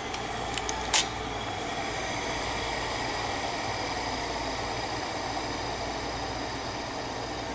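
Direct-drive video head drum of a Shibaden SV-510U reel-to-reel video tape recorder spinning, a steady whir and hiss with a faint whine that slowly falls in pitch as the drum coasts down toward a stop. A sharp click about a second in.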